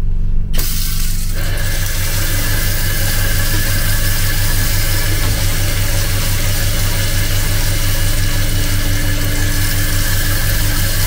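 Water running steadily from a washroom tap into a sink, the tap opened about half a second in, over a steady electrical hum. A steady whine joins about a second later.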